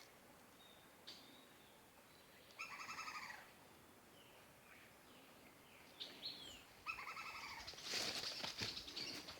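Forest birds calling: short falling whistled notes and, twice, a longer rough call of under a second. From about eight seconds in, a crackling rustle joins them and becomes the loudest sound.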